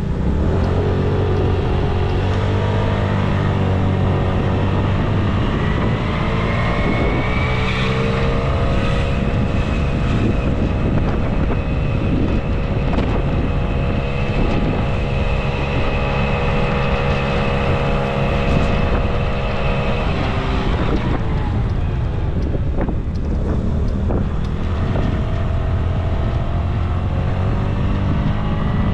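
Steady wind noise on an action camera's microphone, with city traffic passing. A vehicle's hum rises in pitch about a second in, holds steady, and fades about twenty seconds in; another rises near the end.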